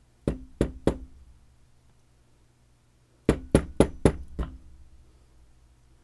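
Sharp knocks on a Clavis F22 lock being gutted, tapping it to jar a stuck pin out of its chamber: three quick knocks, a pause of about two seconds, then five more in a row, each with a slight metallic ring.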